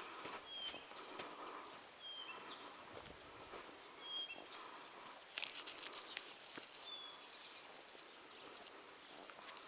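Songbirds singing outdoors: short, high whistled notes, some sliding downward, repeated about once a second. A few sharp clicks or rustles come about five seconds in.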